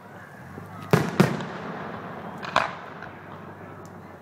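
Aerial fireworks bursting: two sharp bangs close together about a second in, the second the loudest, then a third about a second and a half later, each trailing off in echo.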